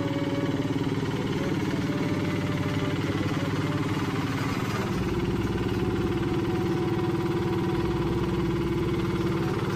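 Small engine of a walk-behind double-drum road roller running steadily as it compacts fresh hot-mix asphalt. Its pitch steps up slightly about five seconds in.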